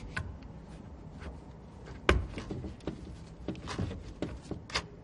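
Scattered clicks and knocks of hands working plastic and rubber parts as a drain hose is pushed onto a washing machine's drain pump, with the sharpest knock about two seconds in.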